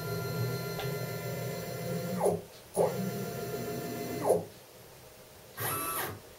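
Stepper motors of a CNC-converted Weiss WM30LV mill driving an axis through its ball screw: a steady multi-tone stepper whine that sweeps in pitch as the move stops and restarts about two seconds in, stops again after about four seconds, and starts up briefly near the end.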